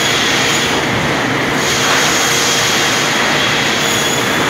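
Woodworking machinery running steadily on a timber-processing floor, around an automatic push-feed crosscut saw. It is a loud, even machine noise with faint steady whines in it.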